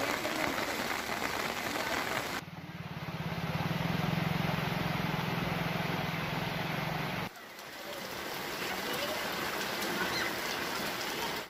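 Field audio of rushing floodwater with faint voices in the background. About two seconds in, the sound cuts to a steady low hum for some five seconds, then cuts back to the water noise.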